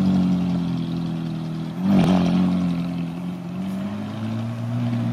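Ferrari V8 engine running at low revs as the car crawls forward. About two seconds in there is a short, loud throttle blip, and the revs rise gently toward the end.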